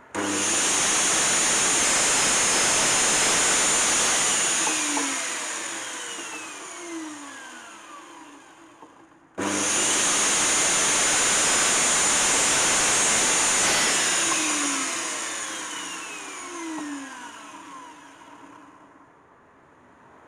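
DeWalt sliding mitre saw run twice to trim a wooden hammer handle. Each time the motor starts suddenly and runs at full speed for about four seconds, then is switched off, and the blade winds down with a falling whine over about five seconds.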